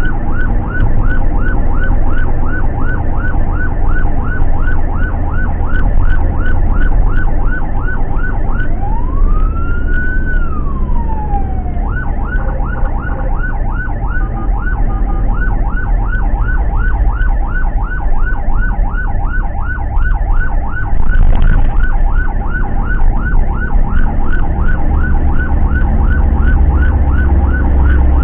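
Ambulance electronic siren in fast yelp mode, about three rising sweeps a second, heard from inside the ambulance's cab over steady engine and road rumble. About nine seconds in, the yelp gives way to one slow rising-and-falling wail lasting about three seconds, then the fast yelp resumes.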